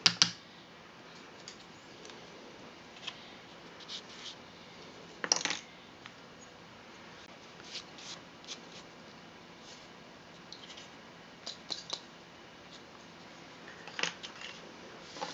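Small wooden cuckoo-clock bellows chambers and a small pointed tool being handled and set down on a tabletop: scattered light clicks and taps. The sharpest knocks come just at the start and about five seconds in, with a quick run of taps near the end.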